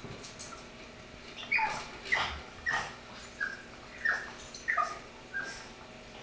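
Pug puppy whining to beg for food: a string of about eight short, high-pitched cries, each falling in pitch, starting about a second and a half in.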